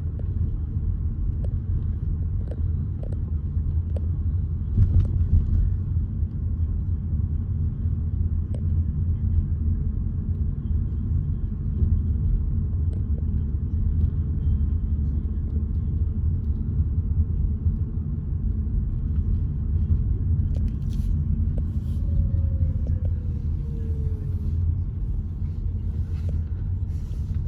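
Steady low rumble of a car driving along a road, engine and tyre noise heard from inside the car, with a faint falling whine near the end.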